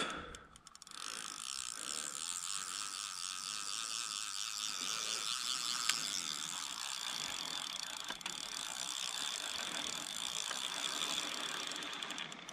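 Large spinning reel on a carp rod ticking rapidly and steadily in the fight with a hooked carp, its ratchet mechanism running for most of the stretch.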